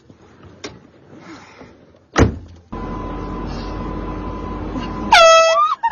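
A sharp click, then a steady mechanical hum. Near the end comes a single very loud air horn blast, one steady pitched tone lasting under a second.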